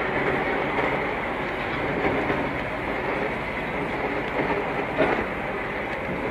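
Steady engine and road noise inside the cab of a moving truck, with a short knock about five seconds in.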